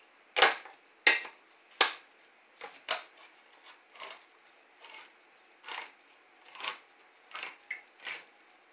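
Manual can opener being cranked around a can of sweet corn: a sharp click with each turn, a little under one a second, loudest over the first three turns and fainter after.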